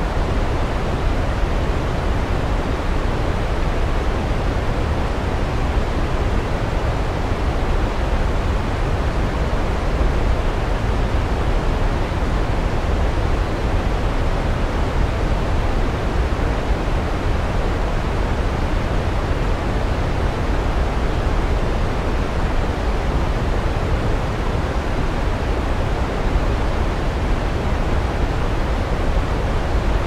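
Waterfall ambience: a loud, steady rush of falling water, strongest in the deep low end.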